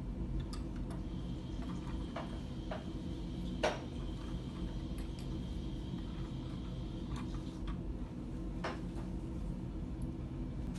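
Small plastic and glass clicks and knocks from hands fitting tubing onto a toy hydrogen fuel-cell car and handling glass beakers, a few separate taps with the loudest about three and a half seconds in, over a steady low room hum.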